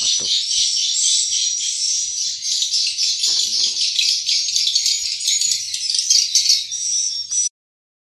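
Edible-nest swiftlets chirping and clicking in a dense, high-pitched chorus inside a swiftlet house. It cuts off abruptly near the end.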